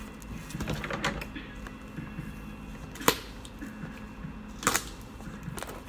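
A Funko Pop's cardboard box and plastic packaging being handled and opened: scattered rustling with a few sharp clicks, the loudest about three seconds in and again near five seconds.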